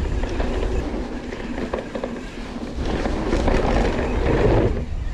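Mountain bike on carbon 29er wheels with Versus tyres rolling fast down a dirt trail: a steady rumble of tyres on dirt, with short clatters and knocks as the bike goes over bumps, and wind noise.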